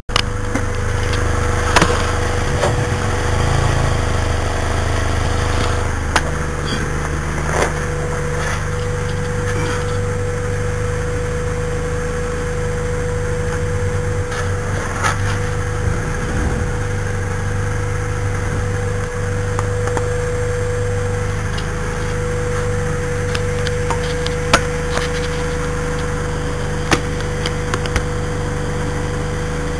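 Chevrolet 307 small-block V8 idling steadily, with a steady hum running through it and sharp knocks at irregular intervals. The knock comes from the torque converter loose against the flex plate, which has no bolts holding the two together.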